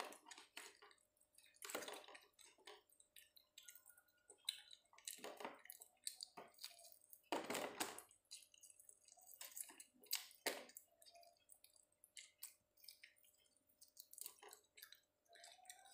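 Faint eating sounds of someone working through fried chicken with his fingers: irregular wet chewing and lip smacks with light clicks, a few seconds apart.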